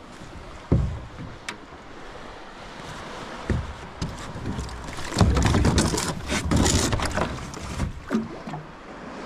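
Plastic sit-on-top kayak bumping against the side of a boat with two dull thumps, then about three seconds of water sloshing and splashing around the hull as the kayak is boarded and rocks.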